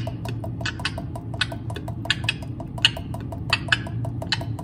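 Homemade vocal beatboxing: an even rhythm of quick mouth clicks with sharper, hissing snare-like accents a little more than once a second.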